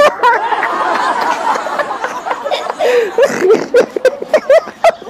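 Several people laughing while a man is tickled, with a young girl's giggling among them: a dense overlapping burst of laughter for about the first two seconds, then shorter laughs.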